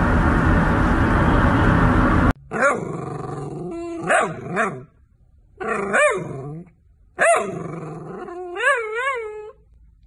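A loud rushing noise cuts off abruptly about two seconds in. A long-haired dachshund then makes about five whining, yowling calls that slide up and down in pitch, the last one warbling.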